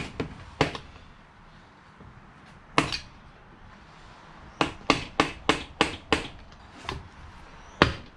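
A mallet hammering on the cylinder block of a seized, salt-corroded Yamaha Wave Blaster twin-cylinder two-stroke jet ski engine to drive it free of the pistons. A couple of blows in the first second, a single hard blow about three seconds in, then a quick run of about eight blows, and one of the hardest near the end.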